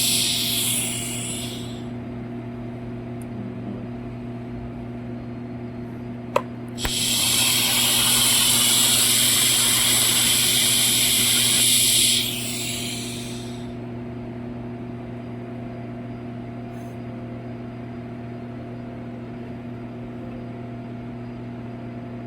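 Arc welding tack welds on steel pipe: a burst of harsh high hissing dies away in the first second or so, then after a sharp click a second burst runs for about five and a half seconds before stopping. A steady machine hum runs underneath.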